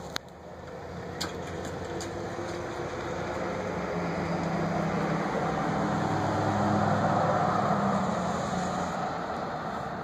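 A vehicle passing by: a steady engine-and-road noise builds slowly over several seconds, is loudest about seven seconds in, then eases off. A sharp click comes right at the start.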